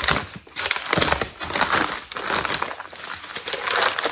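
Brown wrapping paper crinkling and rustling as it is pulled open by hand, in a run of irregular crackles.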